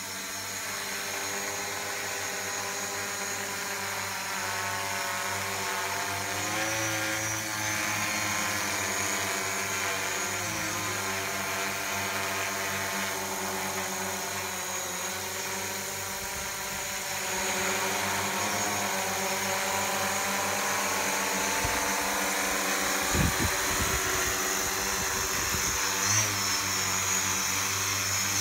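Large agricultural spraying multicopter drone in flight, its propellers and motors droning as a stack of tones that shift up and down in pitch as it manoeuvres, on a test flight after its failed ESC was repaired. A low rumble of buffeting comes in about two-thirds of the way through.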